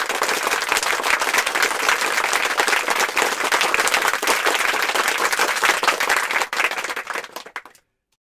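Crowd applause, many hands clapping steadily, thinning to a few last claps and stopping about three-quarters of a second before the end.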